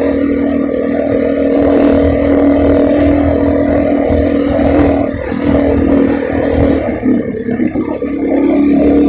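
Motorcycle engine running at a steady speed while riding, a loud even drone that wavers and dips briefly a few times in the second half.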